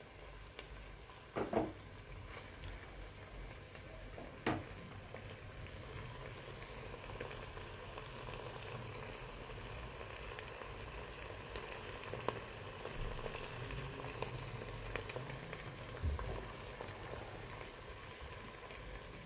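Beef wet fry in its sauce simmering in a stainless steel pot: a steady bubbling and sizzling with fine crackles. Two light knocks sound in the first five seconds.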